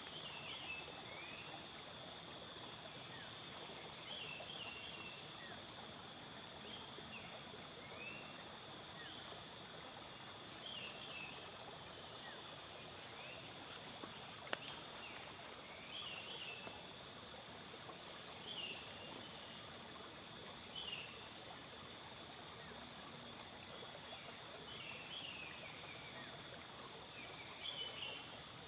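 Outdoor insect chorus: a steady high-pitched drone of insects, with a rhythmic pulsed trill that comes in bursts of a second or two about every six seconds. Scattered short bird chirps sound over it.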